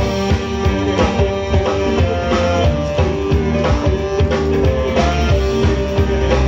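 Live band playing an upbeat number: a drum kit keeps a steady beat under saxophones, trumpet, electric guitar and keyboards, with a singer at the microphone.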